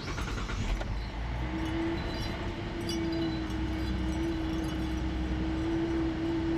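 Buick Enclave V6 engine running at a fast cold idle, steady and even, with its misfire gone now that a cracked PCV vacuum hose has been replaced. A steady mid-pitched tone joins the engine sound about a second and a half in.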